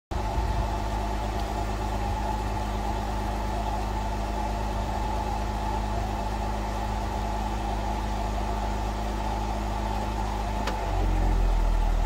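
2015 Jeep Wrangler JK running with a steady low groan, heard from beneath the rear axle. It is the reversing groan that replacing the brakes and rotors cured. Near the end a click, then the sound drops in pitch and gets louder.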